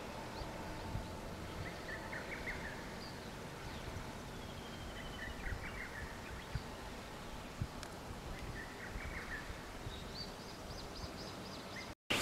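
Faint outdoor ambience with birds chirping in short groups of calls several times, a few of them gliding in pitch, over a faint low rumble.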